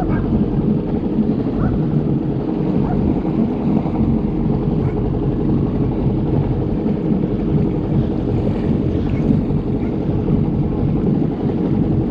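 Jet ski engine running steadily, close to the microphone, with water noise beneath it.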